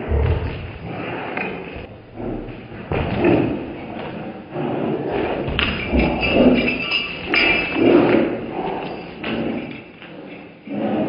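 Two dogs play-fighting on a tiled floor, heard in slow motion: irregular, drawn-out low thuds and scuffles as they wrestle and jump at each other.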